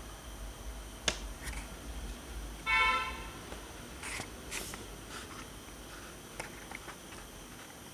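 Short buzzy electronic tone, about half a second long, from an Arduino-driven speaker or buzzer, about three seconds in, with a few faint clicks before and after.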